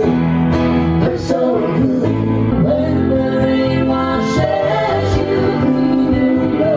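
Live band playing a pop-rock cover song: strummed acoustic guitar and keyboard under a sung vocal melody.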